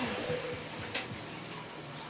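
CNC mill coolant trickling and dripping as the spindle winds down after drilling a 1/4-inch hole. A falling whine and the steady hiss die away at the start, leaving splashing with a few small ticks.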